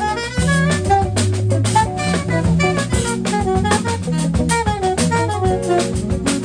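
Live jazz band playing: drum kit with cymbals keeping a steady groove, a bass line, electric guitar and keyboard, with a quick melodic line running over the top.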